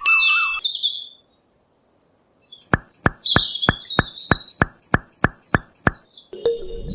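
Birds chirping in short, quick calls, then a run of sharp, evenly spaced clicks, about three a second, from a little before halfway, with more chirping over them.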